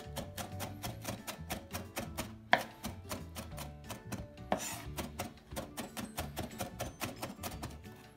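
Chef's knife rapidly mincing red onion on a bamboo cutting board: an even rhythm of about five blade strikes a second on the wood. Twice, a louder, longer stroke cuts through the rhythm.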